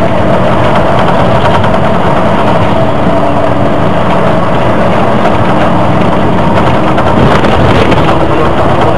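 Volvo Olympian double-decker bus on the move, heard from on board: engine and road noise with a steady whine, whose pitch shifts about seven seconds in.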